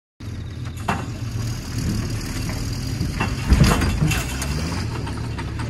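Truck engine running steadily while a truck's box body is dragged off its chassis, with metal clanks and knocks, the loudest about three and a half seconds in.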